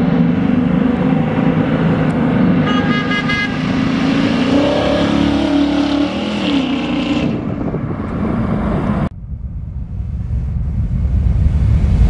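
A 1966 Chevrolet Nova's 408 cubic-inch small-block V8 with Hooker headers and dual exhaust drives past. Its exhaust note rises in pitch as it accelerates about halfway through, then settles and fades, with a brief high tone near three seconds in. About nine seconds in the sound cuts off suddenly to a low rumble.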